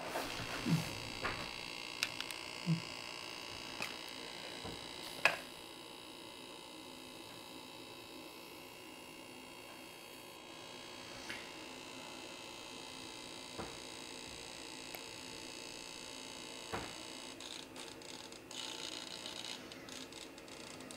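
Quiet steady room hum with a few faint clicks and taps, most of them in the first few seconds and the sharpest about five seconds in.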